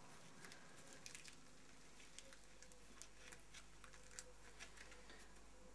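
Near silence with faint, scattered small ticks and crackles of a rubber mould sheet being peeled off its disc patterns by hand.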